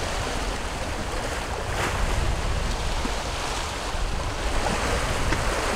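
Open-sea waves washing, with wind rumbling on the microphone; a louder swell of the wash about two seconds in and another near the end.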